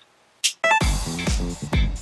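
Background music: after a moment of near silence, a short sweep of noise and a quick run of notes, then upbeat electronic dance music with a steady kick-drum beat, about two thumps a second, starts about a second in.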